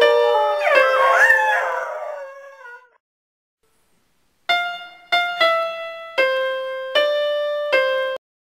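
Electric keyboard playing with a dog howling along, its howl gliding up in pitch about a second in, the whole fading out within about three seconds. After a pause, a short phrase of six keyboard notes that cuts off suddenly.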